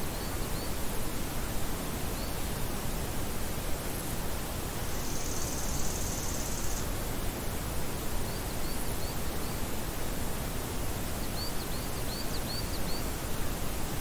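Summer meadow ambience: a steady rushing noise of wind in the grass and on the microphone. Faint high chirps of small birds come in short runs near the start, around the middle and near the end. A high, steady buzz lasts about two seconds, starting some five seconds in.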